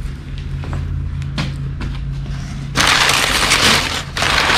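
Crumpled packing paper rustling and crinkling loudly as a hand digs through a cardboard box, starting about three seconds in. Before that, a few light clicks over a low steady hum.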